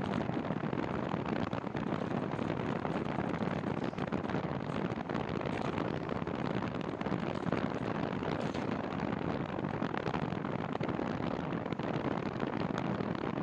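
Wind rushing steadily over the microphone of a camera on a moving bicycle, mixed with road noise.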